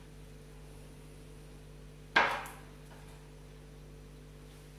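A single sharp knock on the wooden chopping board about two seconds in, over a faint steady hum.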